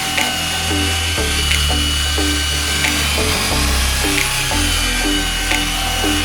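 Background music with a steady beat: a moving bass line under short plucked notes and a tick about every two thirds of a second.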